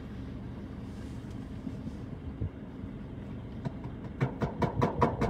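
A steady low rumble, then a quick run of about eight sharp clicks and knocks over the last second and a half.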